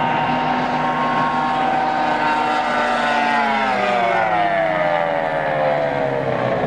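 High-performance race boat engine running flat out in a high, steady whine. About halfway through it slides steadily lower in pitch as the boat speeds past and away.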